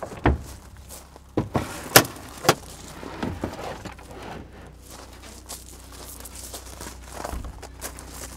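A handful of sharp knocks and clunks in quick succession, the loudest about two seconds in, followed by quieter handling and rustling noise.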